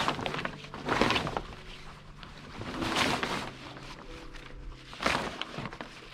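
Water rushing and splashing against a sailboat's hull under sail, in three surges about two seconds apart.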